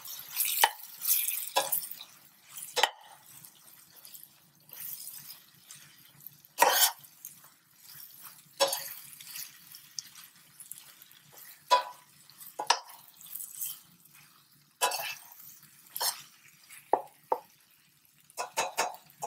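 A metal slotted spoon stirring thick chicken curry in a stainless steel pan: irregular clinks and scrapes of the spoon against the pan, with wet plopping of the sauce, about a dozen strokes.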